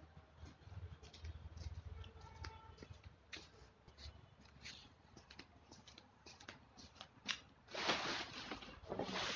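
Scattered faint clicks and small rustles of things being handled, then near the end a louder rustle of plastic sheeting and umbrella fabric being picked up and gathered, twice.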